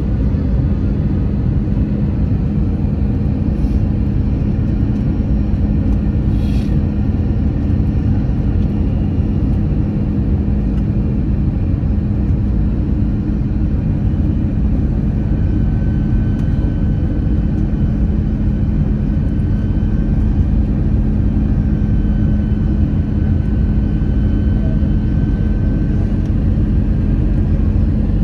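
Airliner cabin noise during descent: a steady drone of jet engines and airflow with a constant low hum, heard from inside the cabin. A faint higher whine joins about halfway through.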